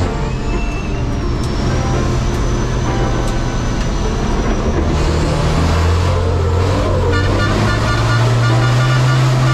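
Racing truck's turbodiesel engine running hard, heard from inside the cab. Its note shifts about five seconds in and climbs again near the end as the truck takes a corner.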